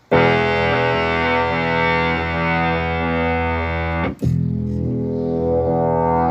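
Bass notes played through an Electro-Harmonix Bass MicroSynth pedal, giving a thick synth tone: one long sustained note, a brief break a little after four seconds, then another held note. The pedal is working again after its overvoltage-damaged power supply and chips were replaced.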